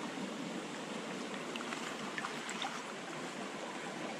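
Shallow mountain creek water running steadily over rocks and gravel, with a few small water plinks around the middle.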